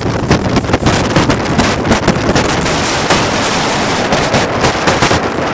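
Strong wind buffeting the microphone of a phone on the open deck of a moving ferry, a loud, constant rush broken by rapid crackling gusts, with the wash of the ferry's wake underneath.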